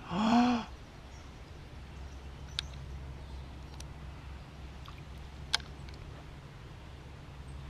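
A short voiced cry that rises then falls in pitch, followed by two sharp clicks over a steady low rumble.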